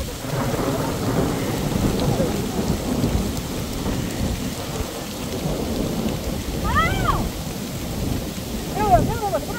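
Heavy rain pouring down, with a loud low rumble running under it.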